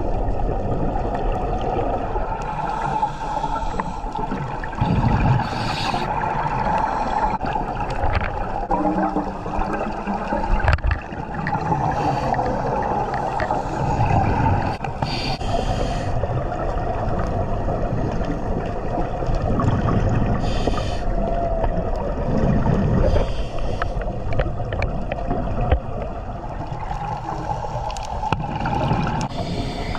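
Scuba diver breathing through a regulator underwater: a hissing breath every several seconds and gurgling bursts of exhaled bubbles, over a steady underwater wash.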